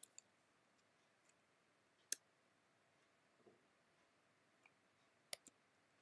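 Near silence broken by a handful of faint, isolated clicks from computer input while working in a terminal. The loudest click is about two seconds in, and two come close together just past five seconds.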